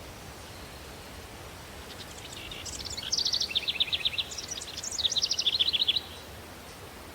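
Country daytime ambience: a steady breeze hiss, with a songbird singing two rapid trilled phrases between about two and six seconds in.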